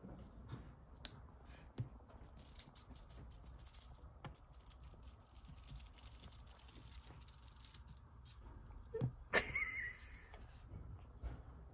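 Two kittens scrabbling and rustling in a crocheted yarn basket as they play with a feather wand toy: many small scratches and rustles, with a brief louder sound about nine seconds in.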